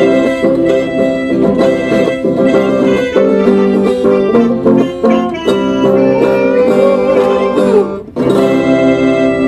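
Chamamé played on guitar and keyboard, with a quick plucked melody over held chords. There is a short break a little after eight seconds in, then a sustained chord.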